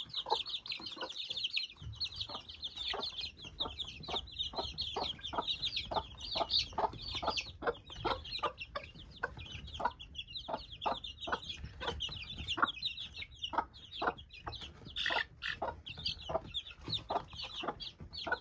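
A brood of baby chicks peeping: many high-pitched peeps overlapping without a break. Under them, the mother hen clucks softly and repeatedly, about three clucks a second.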